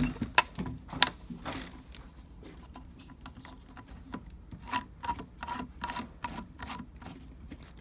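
Side handle being screwed by hand into the gear head of a DrillMaster 4-1/2" angle grinder: irregular clicks and short rubbing turns of the threads, with a run of short squeaky strokes in the second half.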